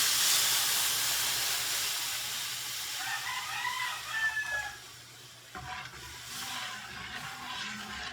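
Water poured into a hot pan of fried curry spices hisses and sizzles, the steam hiss fading over several seconds. A rooster crows in the background about three seconds in.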